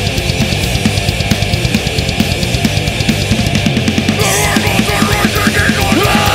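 Live punk band playing loud, fast hardcore punk: distorted electric guitar and bass over a busy drum kit. About four seconds in the deepest notes thin out and sliding guitar notes come through.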